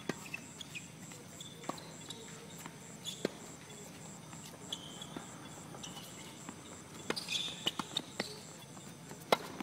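Tennis balls struck by rackets and bouncing on a hard court during a doubles rally: a string of sharp, separate pops at uneven intervals. Behind them runs a faint, high, steady pulsing.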